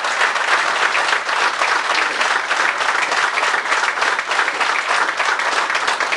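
An audience applauding, many hands clapping at a steady level.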